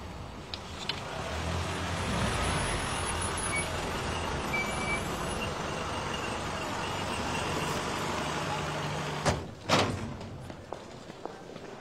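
A vintage Mercedes-Benz car's engine running as it drives, swelling about two seconds in and then steady. The sound cuts off suddenly after about nine seconds, and two loud knocks follow, then light footsteps.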